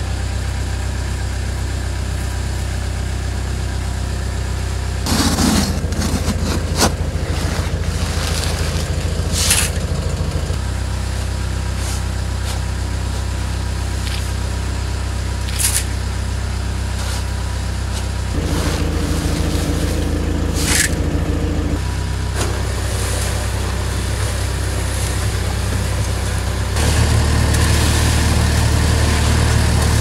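Avant compact loader's engine running steadily at idle, its note stepping up and down in speed several times as the mixer attachment works. A few short scrapes and rattles of a shovel and dry mix going into the concrete mixer drum.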